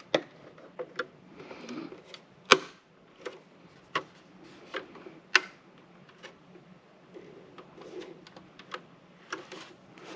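Flathead screwdriver prying at the plastic case of an Arcadyan ARC-XCI55AX cube gateway: irregular sharp plastic clicks and ticks with light scraping, as the top cover's snap clips are worked loose. The two loudest snaps come about two and a half and five and a half seconds in.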